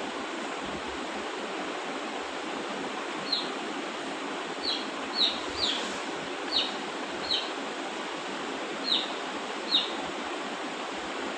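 A parrot giving short, sharp chirps, each dropping in pitch, about eight of them in the middle of the stretch. Under them runs a steady background hiss.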